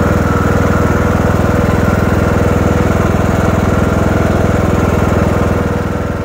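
Lawn mower engine running steadily at mowing speed, then fading out near the end.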